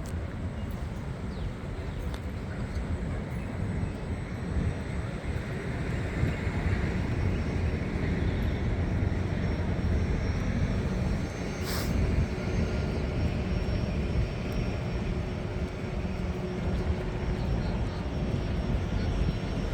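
Steady low rumble of outdoor city ambience, swelling a little midway, with one sharp click about twelve seconds in.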